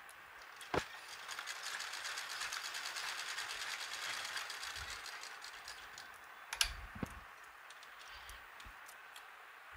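Neelam sewing machine stitching a seam at a fast, even rhythm for about five seconds, starting about a second in and then tailing off. A click comes just before the stitching, and two knocks follow about a second after it.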